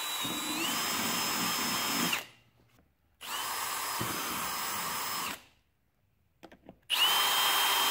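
Milwaukee cordless drill driving screws into a plastic toolbox in three runs of about two seconds each, with short pauses between them. The motor's whine steps up in pitch about half a second in.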